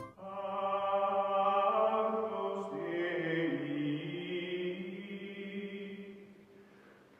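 Background music of held, choir-like chords that shift about three seconds in and fade out near the end.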